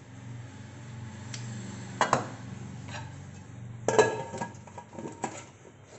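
Clinks and knocks of a white dinner plate against a metal pudding vessel as the plate is set over it to turn the steamed pudding out. One sharp knock about two seconds in, then a cluster of clinks from about four to five seconds, over a low steady hum.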